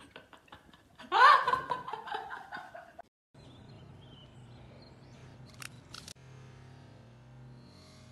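A person laughing in short repeated bursts, swelling into a louder outburst about a second in. After a sudden cut to silence there is only a faint steady background with two short clicks.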